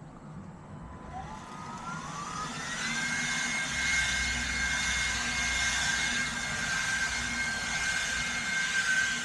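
Electric blower spinning up: a rising whine over rushing air for the first few seconds, then running steadily at full speed with a high whine.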